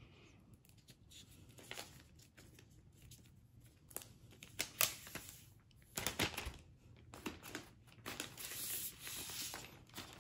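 Clear plastic protective film being peeled off a laptop's aluminium underside, crinkling and crackling in a string of sharp crackles that run together into a longer steady rustle near the end.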